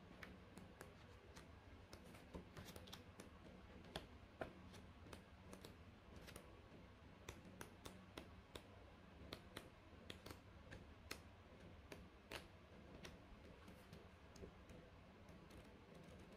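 Faint, irregular ticks and flicks of paper pages as a softcover book is thumbed through by hand, over a low steady room hum.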